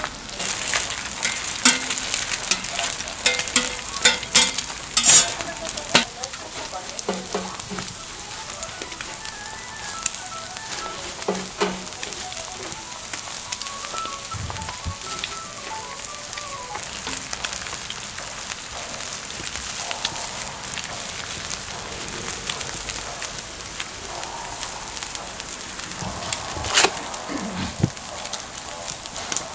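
Burger patties sizzling steadily on a flat-top griddle, with sharp clicks and knocks of handling, most of them in the first few seconds and a loud one near the end.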